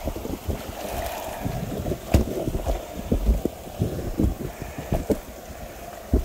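Irregular footsteps and handling thumps through brush and leaf litter, with a sharp click about two seconds in, over a low wind rumble on the microphone.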